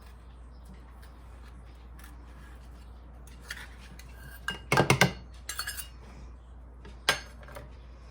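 Kitchen utensils and dishes clinking against a mixing bowl as brown sugar is added to the marinade: a quick cluster of sharp clinks about halfway through, a few lighter taps just after, and a single clink near the end.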